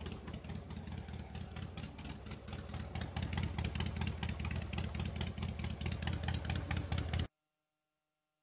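Motorcycle engine running under throttle, a rapid even popping of firing strokes that grows louder about three seconds in, then cuts off abruptly.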